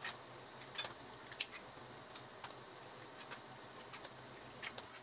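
Eggs being cracked on the rim of a stainless steel mixing bowl: a series of short, sharp taps at irregular intervals.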